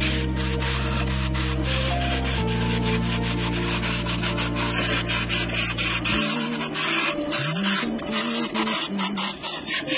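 Turning chisel cutting into a spinning wooden blank on a wood lathe: a steady rough scraping broken by many quick ticks. Background music with low held notes plays underneath.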